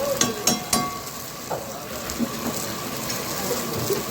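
Chicken karahi frying and sizzling in a metal karahi, with three sharp metallic clinks in the first second.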